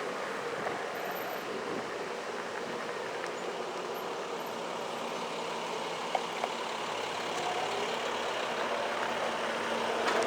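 A motor vehicle's engine running over steady wind and road noise, growing louder near the end.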